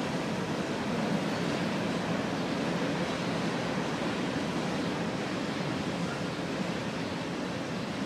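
Union Pacific train's cars rolling past on the rails: a steady rushing rumble of wheels on track, easing off slightly near the end.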